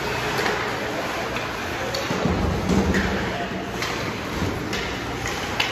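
Ice hockey game in an indoor rink: a steady wash of skating and crowd noise, broken by several sharp clacks of sticks and puck, with people talking.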